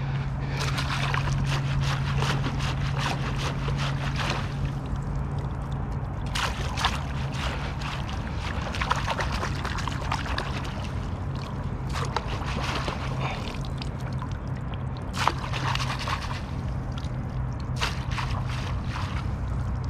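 Landing net being swished and dunked in shallow lake water: irregular sloshing and small splashes, over a steady low hum.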